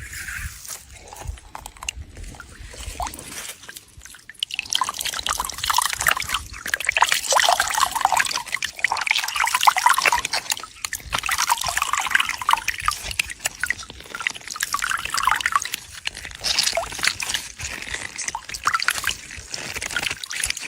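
Moving water splashing and sloshing: a dense crackle of small splashes that grows louder about four seconds in and then keeps on.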